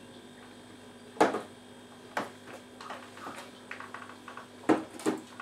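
Small glasses knocked down onto a tabletop after a shot, with a few light clicks and taps in between. One sharp knock about a second in is the loudest, and two more come close together near the end.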